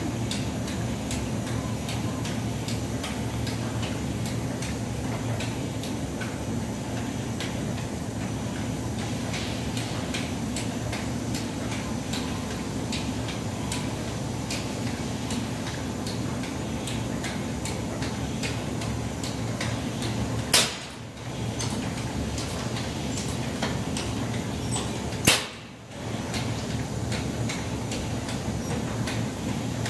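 Refurbished Simonazzi rotary bottle filler running under test: a steady machine hum with many light clicks from its moving parts. Two sharp, loud clicks come about five seconds apart, past the middle.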